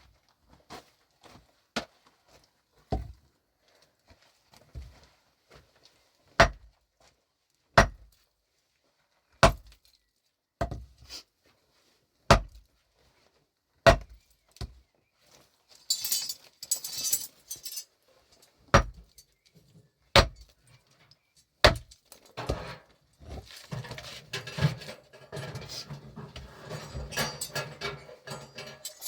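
A pickaxe striking rock and packed earth over and over, one sharp hit about every one and a half seconds. About halfway through there is a brief hiss like loose dirt and stones sliding. Near the end a busier stretch of scraping and rattling comes in with a low hum.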